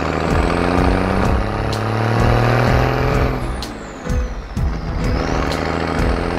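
Cartoon garbage truck's engine sound effect running over background music with a steady beat; the engine sound fades out about halfway through.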